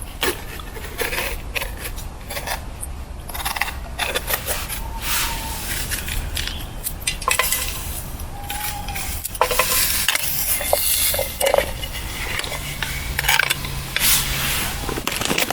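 Metal camp cookware clinking and scraping as food is stirred in a pan, with some sizzling.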